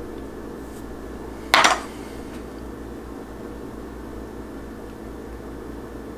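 A single sharp clink of a metal spoon against crockery about a second and a half in, over a steady low hum.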